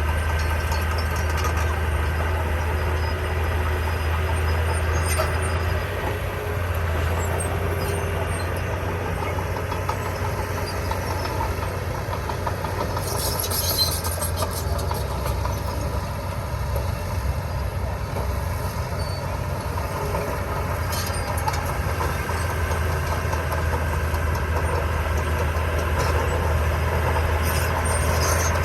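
Heavy diesel construction machinery running steadily, with a short hiss about 13 seconds in.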